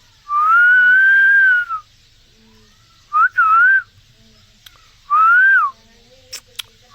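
Indian green parrot whistling: one long, fairly level whistle, then a short chirp and two shorter whistles that rise and fall in pitch.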